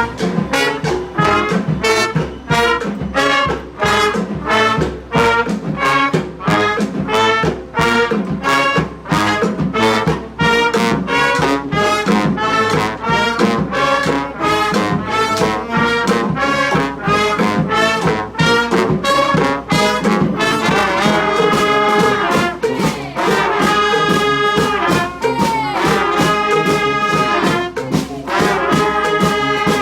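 A brass street band playing: trombones and trumpets over a steady percussive beat. About two-thirds of the way in the horns move to long held chords.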